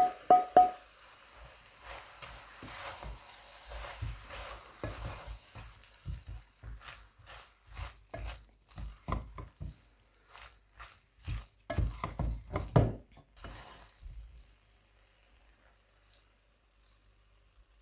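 Spoon stirring food in a cooking pot: a few ringing taps on the pot at the start, then irregular scraping and knocking, loudest about twelve seconds in, dying away near the end.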